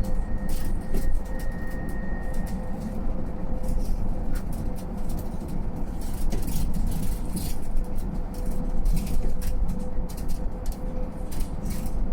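A Mercedes-Benz eCitaro G full-electric articulated bus driving, heard from inside the cabin: steady road rumble with scattered rattles and clicks over a steady electric whine. A higher whine stops about three seconds in.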